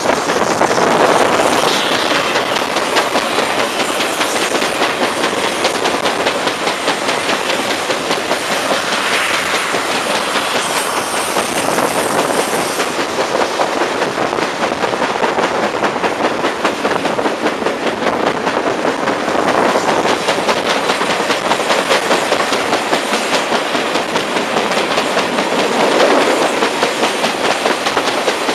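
Railway carriage running at speed, its wheels beating out a rapid, regular thumping on the rails from a flat spot on one of the carriage's wheels, over a steady rush of running noise.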